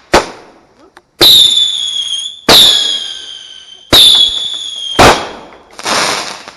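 Whistling fireworks going off: a sharp bang, then three shrill whistles about a second and a half apart, each starting suddenly and sinking slightly in pitch as it fades. Another bang follows, and a hissing burst comes near the end.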